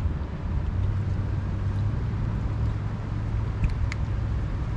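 Steady low wind rumble on the microphone, with a few short, sharp clicks near the end from cats crunching dry kibble.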